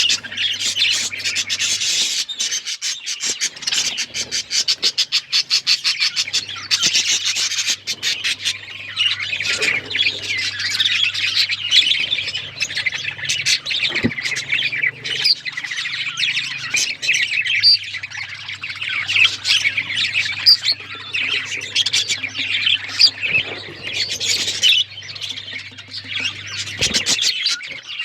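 Several budgerigars chirping and chattering, a dense, continuous stream of rapid high chirps and squawks.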